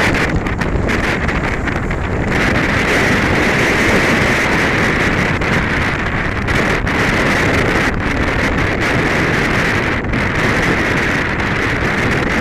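Storm-force wind from a hurricane's remnants blasting over the microphone: a loud, continuous, rumbling roar that dips briefly a couple of times.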